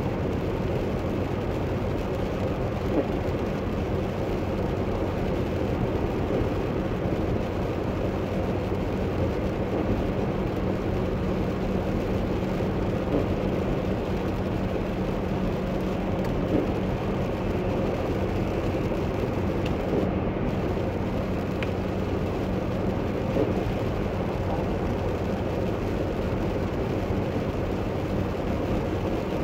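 Steady road noise inside a car driving on a wet highway: tyres hissing on the wet pavement over a low, even drone.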